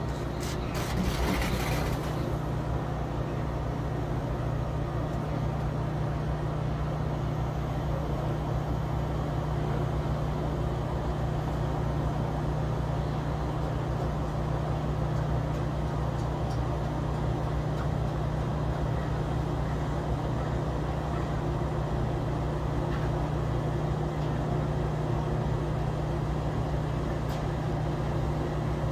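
Steady low machine hum from rooftop air-conditioning units running, one constant drone with no change in pitch, with a short rush of hiss about a second in.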